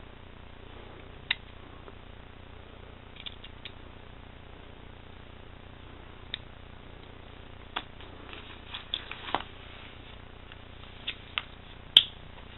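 Scattered small metal clicks and light taps as the parts of a folding pocket knife are handled during reassembly, the loudest a sharp click near the end, over a steady low hum.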